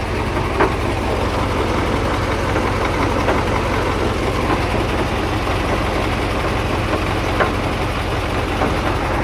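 KamAZ truck's diesel engine running steadily at a low idle, with a few faint short knocks over it.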